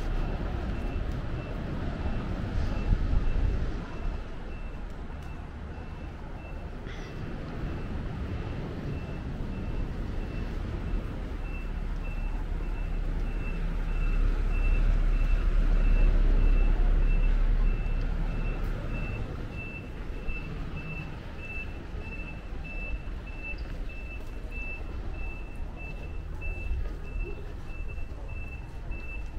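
A high electronic beeper repeating evenly, about two beeps a second, growing louder toward the end, over the low rumble of a motor vehicle that swells around the middle.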